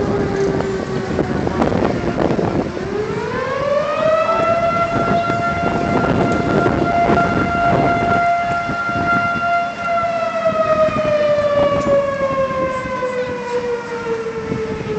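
A fire siren winding up steeply about three seconds in, holding a steady high pitch for several seconds, then slowly winding down toward the end.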